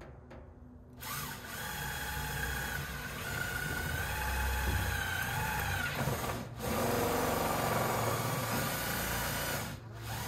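Power drill with a 5/32-inch bit drilling a pilot hole through the overlapping corrugated steel fence panels: the drill runs for about five seconds, stops briefly, then runs again for about three seconds.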